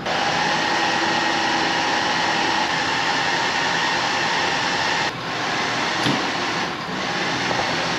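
Steady mechanical whir: an even rushing noise with a faint steady hum in it. It dips slightly about five seconds in.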